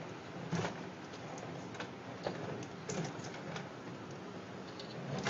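Scattered light clicks and scrapes, irregular and faint, as a tortoise walks on concrete carrying a small wheeled barbecue grill on its shell.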